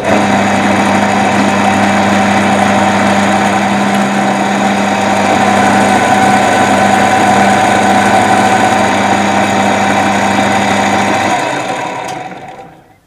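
Milling machine spindle motor switching on abruptly and running steadily with a low hum, while a 12 mm roughing end mill held in a drill chuck cuts a recess into a metal disc, throwing chips. Near the end the motor is switched off and the spindle runs down and fades out.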